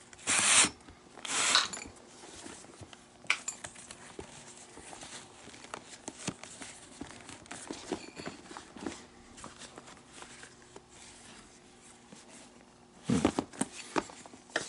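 Leather lace being drawn through the lacing holes of a baseball glove: two long hissing pulls about a second apart at the start, small rustles and clicks of handling the stiff leather in between, and another burst of pulling about thirteen seconds in.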